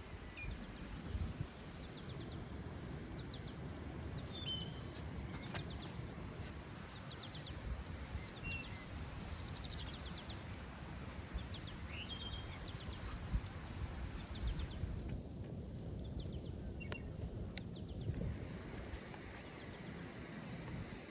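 Small birds chirping, with short rapid trills repeating on and off, over a steady low background rumble.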